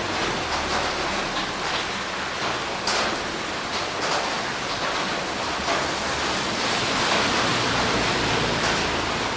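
Heavy rain falling steadily, with occasional sharper splashes of drops, one standing out about three seconds in.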